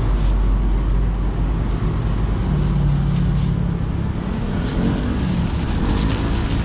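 Street traffic: a steady low rumble of vehicle engines, with one engine's hum growing louder for a second or so in the middle.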